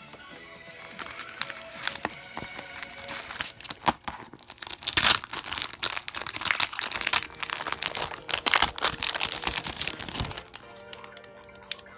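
Packaging being crinkled and torn open by hand, in dense rustling bursts that are loudest in the middle of the stretch, over background music.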